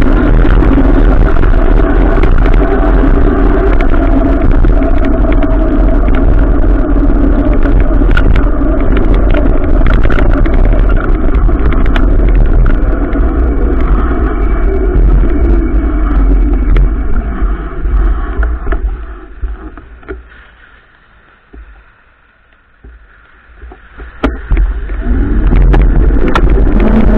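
Riding an adventure motorcycle in the rain, heard on board: a loud, steady rush of wind and engine noise with scattered sharp clicks. It fades to much quieter for a few seconds past the middle, then comes back up.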